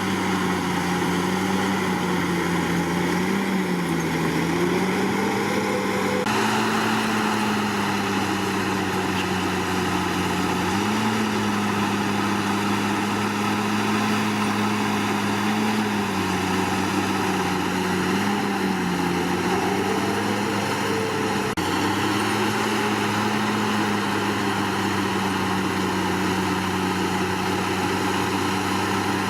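Bulldozer's diesel engine running steadily, its pitch dipping and rising slightly every few seconds as the load on it changes.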